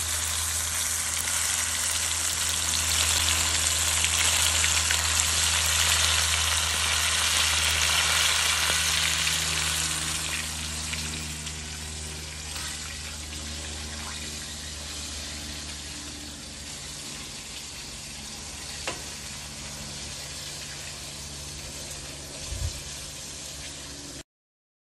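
Fish frying in hot oil: a steady sizzle over a low hum. The sizzle fades after about ten seconds. Near the end there are a couple of light knocks.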